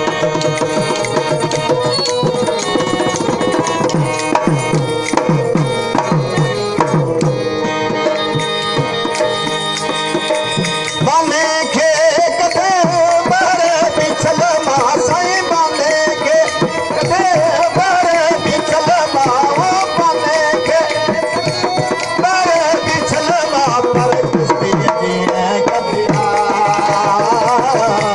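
Sindhi folk music: a hand drum and a long-necked string instrument play, and a man's voice comes in singing with a wavering melody about eleven seconds in, carrying on over the drum.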